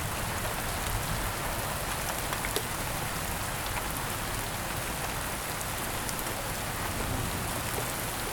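Steady rain from a thunderstorm, an even hiss with scattered close drops ticking now and then.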